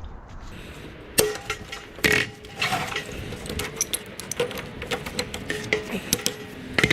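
Metal tools and fittings clanking and clinking, with sharp ringing metal strikes about a second in, two seconds in and again near the end, as brass plumbing fittings are worked off a scrap water heater.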